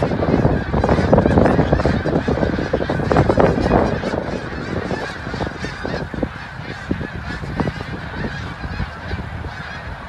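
A large migrating flock of geese calling overhead: a dense chorus of many overlapping honks, louder for the first few seconds and thinning out toward the end, with wind rumble on the microphone underneath.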